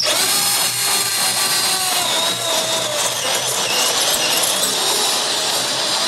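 Power drill with a double-fluted step drill bit boring through sheet metal: a harsh cutting noise with a high whine that drops in pitch over the first three seconds, then holds steadier.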